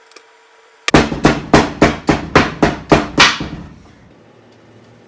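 A kitchen knife hacking at a baseball on a wooden tabletop: about ten sharp strikes, roughly four a second, starting about a second in and stopping after about two and a half seconds.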